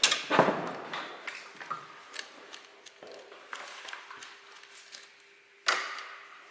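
Tools and parts being handled during a teardown: scattered clicks and clinks, louder knocks right at the start, and one sharp knock about five and a half seconds in. A faint steady hum sounds in the middle stretch.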